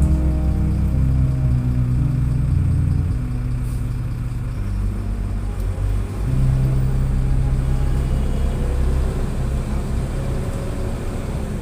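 Bus engine and road rumble heard from inside the moving bus, with the engine's low drone holding steady and then shifting pitch several times.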